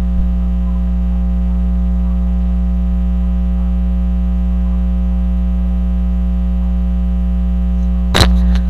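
Loud, steady electrical mains hum, a low buzz with a ladder of overtones, picked up on the recording. A single sharp click near the end.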